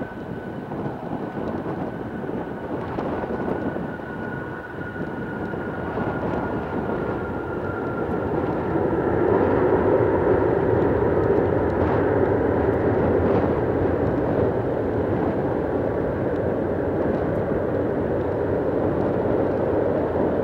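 Airbus A340-300's four CFM56 jet engines during its landing roll: a high whine slides slowly down in pitch over the first several seconds, then the jet roar swells louder from about nine seconds in and holds steady.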